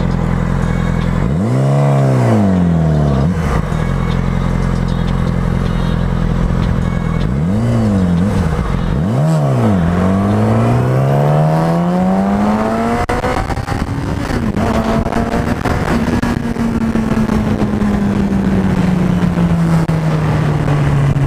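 2007 Yamaha R6's inline-four through an aftermarket Leo Vince exhaust, heard from on the bike: idling, revved once about a second and a half in, blipped twice quickly near the middle, then pulling up through the revs to a gear change and settling into a long steady run with the revs slowly falling. Wind noise rushes over it while the bike is moving.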